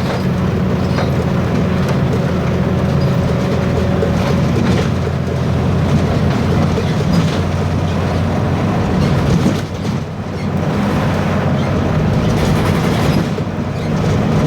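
Diesel engine of a Caio Apache Vip I articulated bus on a VW 17.230 EOD chassis running under way: a steady engine drone with a faint turbocharger whine and body rattles. The engine sound dips briefly about ten seconds in.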